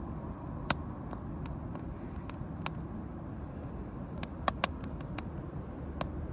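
Wood campfire burning with a steady low rumble and sharp crackling pops every second or two, two of them close together about four and a half seconds in.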